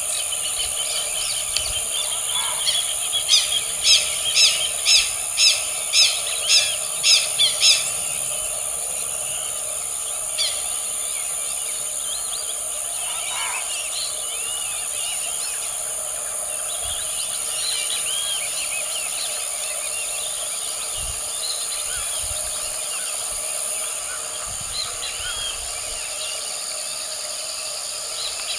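Wild birds calling: a run of about ten loud, sharp high calls, about two a second, a few seconds in, then scattered chirps and short trills over a steady high-pitched background drone.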